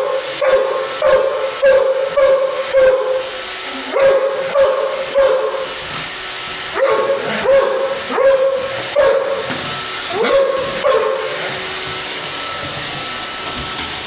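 German shorthaired pointer barking over and over at a running Roomba robot vacuum, about two barks a second in short runs, stopping about eleven seconds in. The vacuum's steady running hiss continues underneath.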